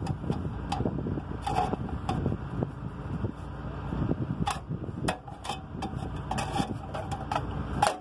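Metal licence plate scraping and clicking against a trailer's sheet-metal plate holder as it is pushed in and jammed, the plate too thick to fit, over a steady low rumble.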